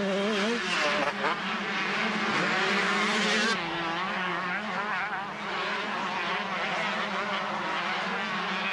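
Two-stroke 125cc motocross bike engines revving hard and shifting through the gears, the pitch wavering up and down. The sound changes abruptly about three and a half seconds in.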